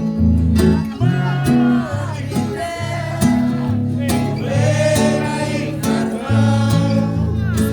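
Live music: guitar accompaniment with singing voices carrying the melody over a bass line that steps from note to note.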